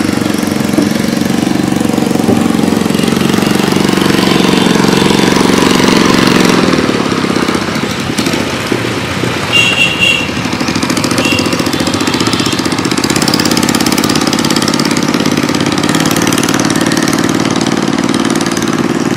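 Small boat engine running steadily, easing off for a few seconds around the middle and then picking up again. A couple of short high-pitched tones sound about ten seconds in.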